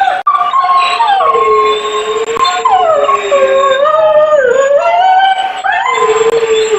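Gray wolves howling in chorus: several long, overlapping howls that glide up and down in pitch and cross one another.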